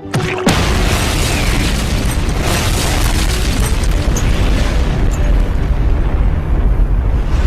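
A loud, continuous explosion-like rumble, heavy in the low end with hiss across the whole range. It begins about half a second in and carries on steadily without letting up.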